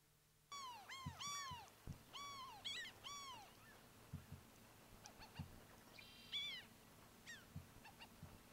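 Franklin's gulls calling: a quick run of repeated calls that rise and fall in pitch, starting about half a second in, then thinning to sparser, fainter calls.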